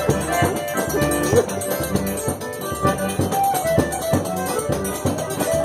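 Forró music: an accordion playing a melody over a steady percussion beat.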